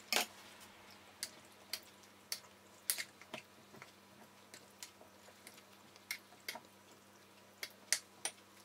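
A spoon putting thick tomato sauce into a glass jar of peppers: faint, irregular light clicks of the spoon against the glass mixed with soft wet plops of sauce.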